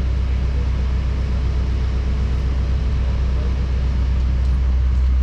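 Backhoe's diesel engine running steadily with a deep, even hum.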